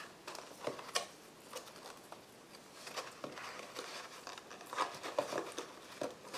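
Soft rustling and a few light clicks of cardstock as hands handle and fold a small paper gift box.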